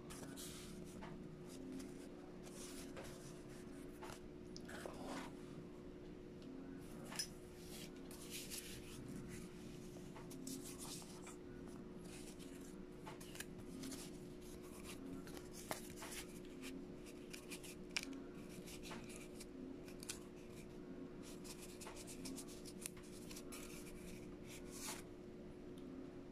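Corrugated cardboard being handled and worked by hand: faint intermittent scraping and rustling with small sharp clicks, over a steady low hum.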